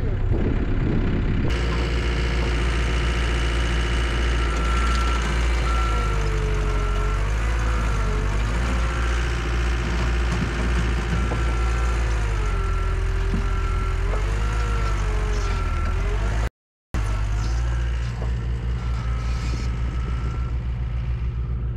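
Compact track loader's diesel engine running under load as the machine works through soft mud, with a high beeping in regular pulses and a whine that rises and falls. The sound cuts out for a moment about 17 seconds in.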